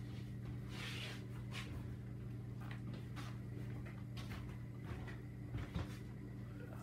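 Quiet room tone: a steady low hum with a few faint knocks and rustles, and a couple of soft thumps near the end.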